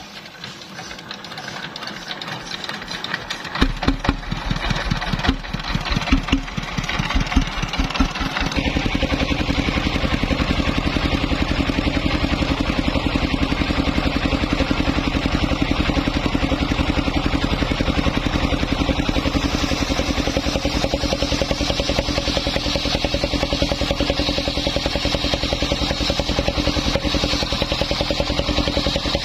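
Small engine of a homemade mobile circular-saw rig starting: uneven, irregular firing from about four seconds in, then it catches at about eight seconds and settles into steady running.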